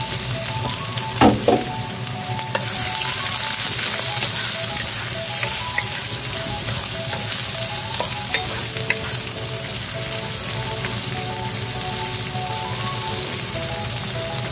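Sliced onions sizzling as they fry in hot oil in a nonstick pan, stirred with a wooden spatula. The sizzle grows louder about three seconds in. A couple of sharp knocks come just over a second in.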